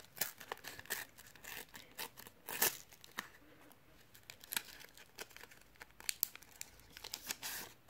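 Panini sticker packet's foil wrapper being torn open by hand: a series of short, irregular crinkles and tearing crackles, the loudest about two and a half seconds in and a quick cluster near the end.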